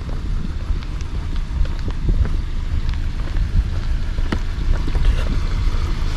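Low steady rumble of a car, with scattered sharp clicks and knocks over it.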